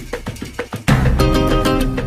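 Background music: a rhythmic drum beat, then about a second in a sudden loud hit and a fast melody of short, bright notes over the beat.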